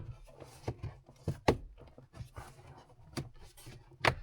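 Plastic interior trim of a car's center console being worked loose by hand: a series of sharp clicks and knocks with rubbing in between.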